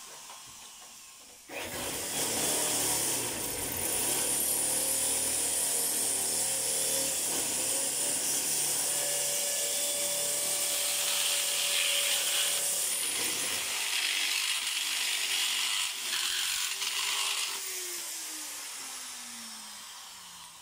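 Electric power tool running under load for about sixteen seconds, starting suddenly, then switched off and winding down with a falling whine.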